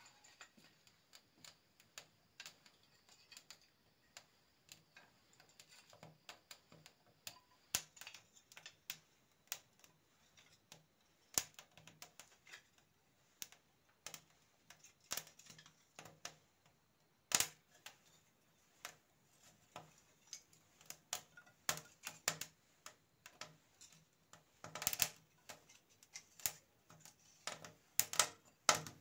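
Thin dry wooden kindling sticks clicking and clattering as they are laid one by one onto a small fire in a brick forge hearth, with the burning wood crackling. Irregular light clicks throughout, with a few sharper knocks about halfway through and near the end.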